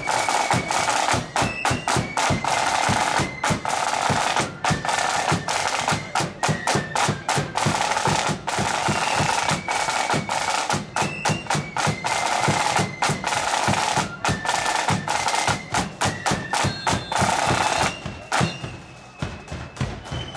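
Marching band side drums played in a fast, continuous pattern of rolls and strokes, with a high wind-instrument melody in short stepped notes above them. The drumming thins to lighter, scattered strokes near the end.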